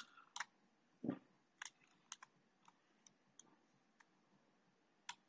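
Faint computer mouse clicks, about ten at uneven intervals, with one duller tap about a second in.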